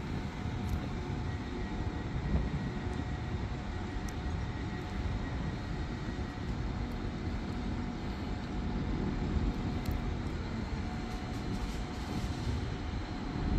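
Northern diesel multiple unit approaching slowly from a distance, a steady low rumble with a faint engine hum.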